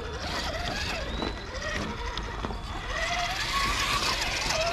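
A Traxxas TRX-4 Sport High Trail 1/10-scale electric crawler's motor and drivetrain whining as it climbs over rock, the pitch swelling up and falling back in short surges with the throttle.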